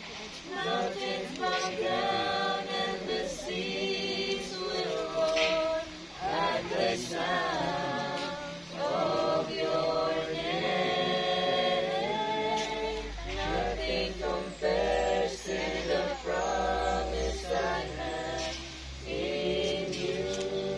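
A group of voices singing together in unison, holding and sliding between sustained notes.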